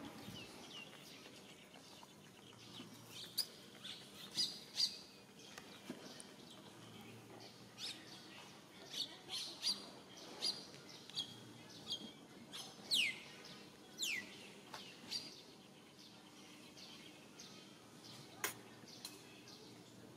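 Scattered short, high-pitched animal chirps, most of them in the middle of the stretch, with two sharp downward-sliding calls about 13 and 14 seconds in.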